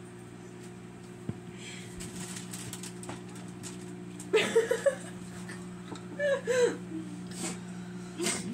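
Two short bursts of a person's voice with no clear words, about four and six seconds in, the second bending up and down in pitch, over a steady low hum, with faint crackles and clicks a couple of seconds in.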